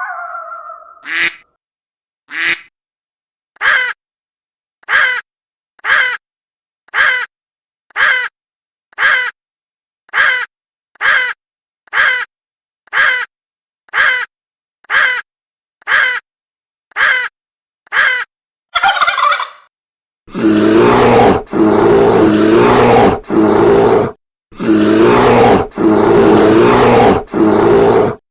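Recorded animal calls: a run of short calls, evenly spaced about once a second, then from about twenty seconds in a series of long, loud, rough calls.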